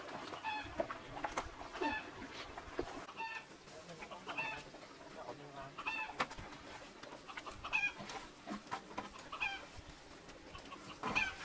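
Short pitched calls from farm animals, repeated roughly once a second, with scattered clicks and knocks.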